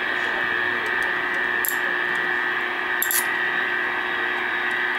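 Alarm buzzer of a President Dwight D. Eisenhower CB base station's clock, buzzing steadily while its adjustment is turned to make it sound properly. Two light clicks come just before two seconds in and at about three seconds in.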